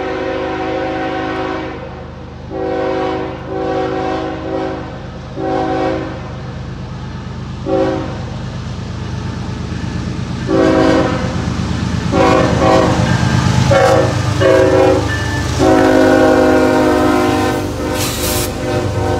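Diesel locomotive air horn sounding a horn salute: a long series of short and long chord blasts, the last one held for about three seconds. Under it the locomotive's engine rumbles, growing louder as the train comes up close.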